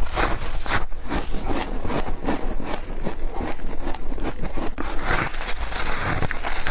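Close-up crunching of freezer frost being bitten and chewed, a rapid series of crisp, icy crunches.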